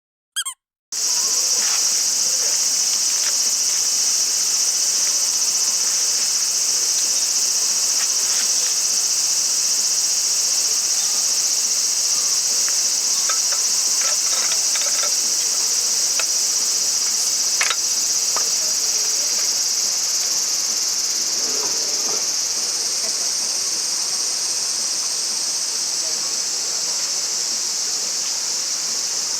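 Steady, dense chorus of insects, a high continuous shrilling that begins abruptly about a second in, with a few faint scattered clicks over it.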